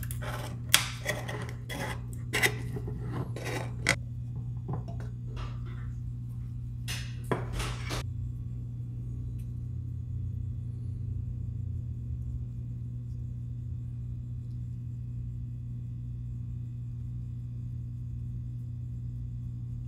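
Clinks and knocks of a metal quart can of clear-coat finish and its lid being handled for about the first eight seconds, then only a steady low hum while the clear coat is brushed on silently.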